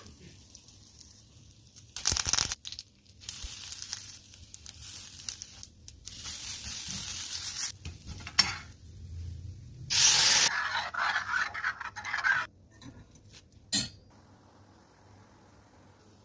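Food sizzling in hot oil in a cooking pan, coming in several bursts with stirring, the loudest burst about ten seconds in; a short knock follows near the end.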